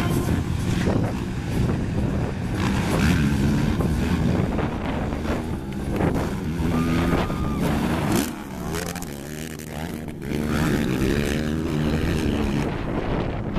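Several racing quads (sport ATVs) running on a dirt motocross track. Their engines rev up and ease off in turn as the riders accelerate and jump, with a dip in level about eight seconds in.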